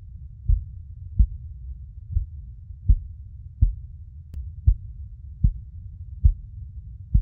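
Heartbeat sound: soft, low thumps at about 80 beats a minute over a steady low rumble.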